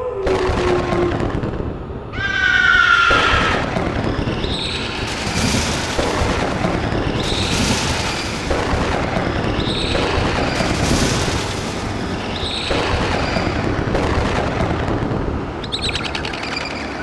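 Cartoon sound effects: a wolf's howl tails off and falls in pitch in the first second, a shrill falling cry follows about two seconds in, then a loud rushing noise swells and fades about every two and a half seconds, with short high chirps on each swell.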